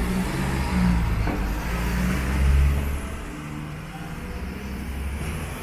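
A motor vehicle's engine running close by, loudest about two and a half seconds in, then fading as it moves away.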